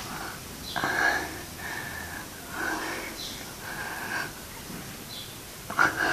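A person breathing hard in short, noisy breaths, about five of them a second or so apart, from the effort of holding a kneeling leg-lift stretch.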